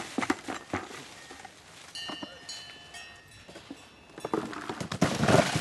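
Knocks and rattling from work on a metal-bar frame with wire mesh. A few sharp knocks come in the first second, and a louder stretch of clattering and rustling follows near the end.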